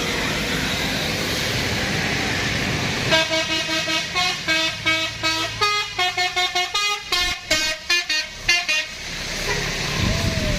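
Bus 'telolet' musical horn sounding a rapid string of short notes that jump between pitches, starting about three seconds in and lasting some six seconds. Steady engine and tyre noise of the passing vehicle comes before and after it.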